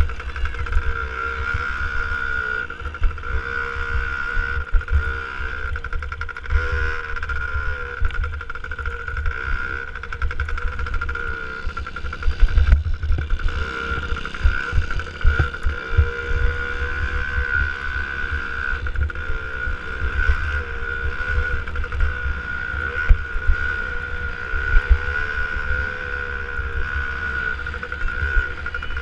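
A 65cc two-stroke motocross bike's engine running hard, its pitch rising and falling with the throttle, with heavy wind buffeting and bumps on the microphone.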